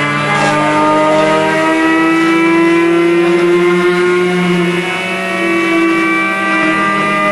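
Stepper motors of a small hobby CNC machine driving its axes through a spiral path: a steady whine of several tones that glide slowly up and down in pitch as the axis speeds change.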